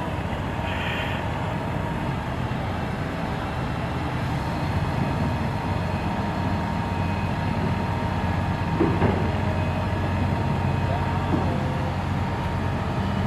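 Bulldozer's diesel engine running steadily with a low drone, getting a little louder from about four seconds in.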